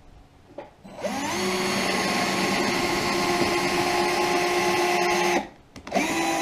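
Black+Decker cordless drill drilling into a wooden wall panel. A steady motor whine spins up about a second in, runs for about four seconds and stops; a second, shorter run starts near the end.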